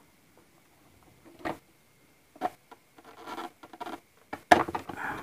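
A hard plastic headlight lens cover and front body panel of a Honda Vario 150 scooter being test-fitted by hand, with plastic wrapping crinkling. Irregular short scrapes, rustles and clicks, thickening from about three seconds in, with the loudest sharp plastic clack about four and a half seconds in.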